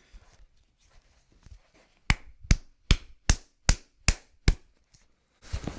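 A quick run of seven sharp, evenly spaced clicks, about two and a half a second, starting about two seconds in, after a few faint clicks. A rush of noise comes in near the end.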